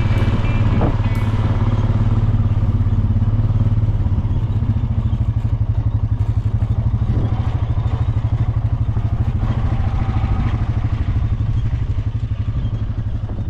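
Quad bike engine running steadily with an even low throb, growing quieter near the end.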